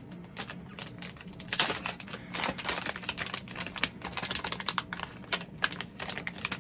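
A makeup brush set's packaging being opened by hand: a rapid, uneven run of small clicks and crackles, with a couple of brief louder rustles about two seconds in.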